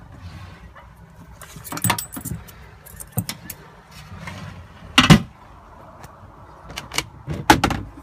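Clicks and knocks of a camper's kitchen fittings being handled: the sink cover and cupboard catches and doors, with sharp knocks about two, five and seven and a half seconds in.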